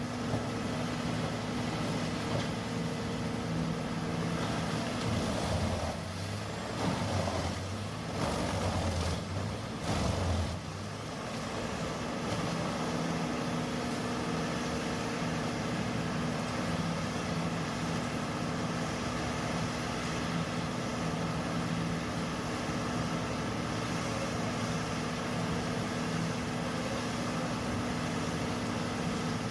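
HG6800TX horizontal shredder running steadily with its large engine humming, and a louder, rougher stretch lasting several seconds from about five seconds in.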